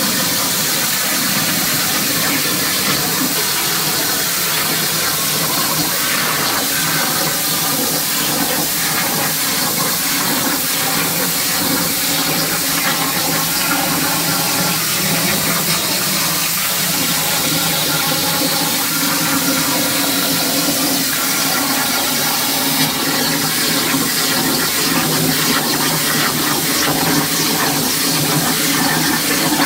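CNC plasma torch on a JD Squared 5x10 MAD table cutting steel plate: a loud, steady hiss of the plasma arc and its air stream, without a break.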